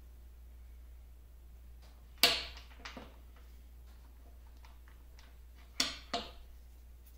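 Sharp metallic clinks of a wrench against the nut and shaft of a lathe handwheel, with brief ringing: one loud clink about two seconds in followed by a couple of lighter taps, then two more clinks close together near the end.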